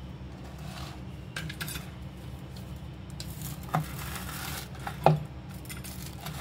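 A knife cutting through crisp, tawa-toasted bread sandwiches, the crust crunching as the blade saws through it. The blade knocks on the wooden chopping board twice, a little under four seconds in and again about a second later, the second knock the loudest.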